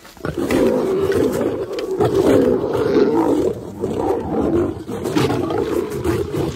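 African lions fighting over a kill, with continuous loud snarls and roars: aggression between lions at a kill.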